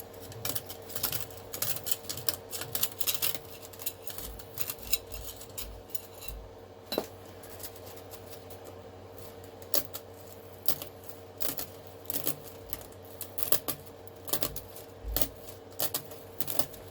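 3D-printed plastic chainmail clicking and rattling as it is peeled off the printer bed and handled, in irregular clusters of sharp little clicks.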